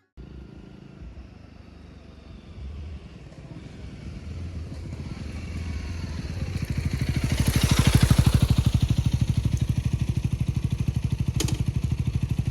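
Honda Rebel 250 single-cylinder motorcycle engine running with a rapid, even pulse, growing louder over the first eight seconds and then holding steady. There is a short click near the end.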